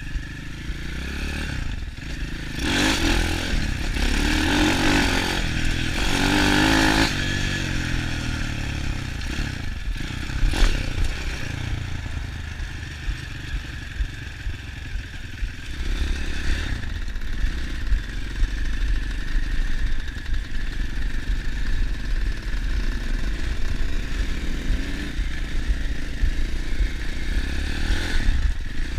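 150 cc Apollo dirt bike's engine under way, heard from the rider's camera: the revs climb hard a few seconds in, then it runs on at a steadier, lower throttle. Wind rushes over the microphone, with some clatter from the bike over bumps.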